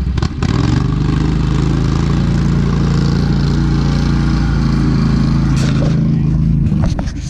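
Amphibious ATV's engine running at a steady pitch as the machine drives off, with a short knock about half a second in.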